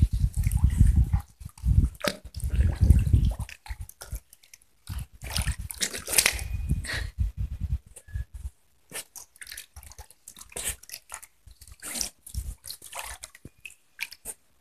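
Dachshund wading and dunking its head in shallow water: irregular splashes and sloshing, heavier in the first half and sparser, smaller splashes and drips later.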